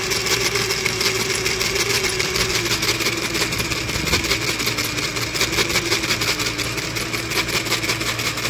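Bauer cordless jigsaw running unloaded, its blade driving up and down in a fast, even rattle with a pretty nasty noise from inside the housing. It sounds like it's eating itself alive inside, the sign of internal damage in the drive.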